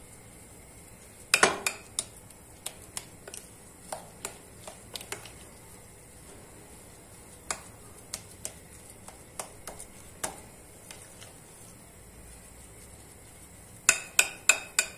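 Metal spoon clinking and scraping against a glass mixing bowl while stirring a thick mashed-potato mixture. Scattered taps, with a loud cluster about a second and a half in and a quick run of clinks near the end.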